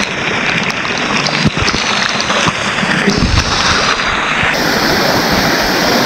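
Waterfall pouring into a rock pool, a loud steady rush of falling and splashing water close to the microphone, with a few sharp knocks early on. About four and a half seconds in, the rush becomes brighter and hissier.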